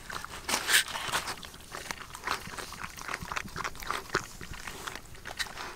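Puppy chewing grilled fish: a quick, irregular run of crunches and wet mouth smacks.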